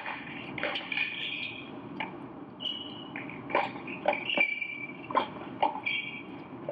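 Tennis rackets striking the ball in a fast doubles exchange of volleys, a sharp pock every half second to a second and a half, with short high squeaks of tennis shoes on the indoor hard court between the hits.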